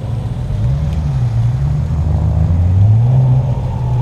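A car's engine revving with a deep note. The pitch climbs about a second in, eases off, then climbs again around the middle.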